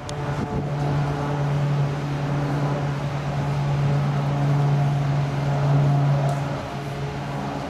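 Boeing 787-8 Dreamliner climbing out after take-off, its jet engines heard as a steady low drone with a hum. The drone swells between about four and six seconds in and eases near the end.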